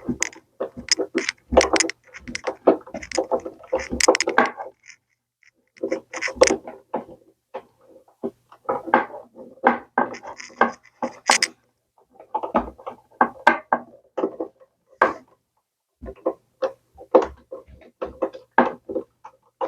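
Irregular knocking and clattering of wooden furniture parts and tools being handled, in bursts with short pauses between them.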